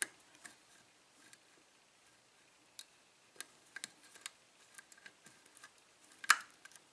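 Lock pick clicking and ticking against the pin stack inside a 5-pin Norwalk cylinder lock under tension, with faint scattered clicks and one louder click about six seconds in. The pins are being worked to win back a lost false set.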